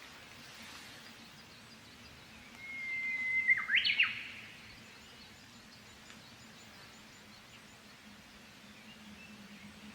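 Japanese bush warbler (uguisu) singing one song: a long held whistle followed by a quick flourish of rising and falling notes, about three seconds in.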